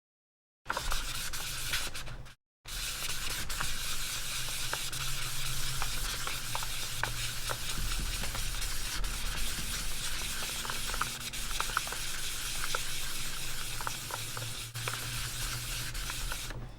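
800-grit sandpaper rubbing steadily against the plastic of an AirPods Pro case: a continuous gritty scratching with small ticks. It starts about a second in and breaks off briefly once.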